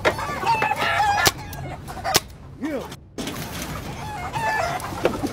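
A rooster crowing, with one call of about a second near the start and a shorter one about four seconds in, among clucking chickens. Two sharp knocks come in between.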